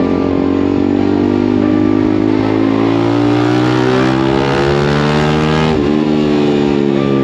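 TVS Apache RR310's single-cylinder engine through a full-system LeoVince exhaust, on the move and pulling steadily with a slowly rising note. About six seconds in there is a quick upshift.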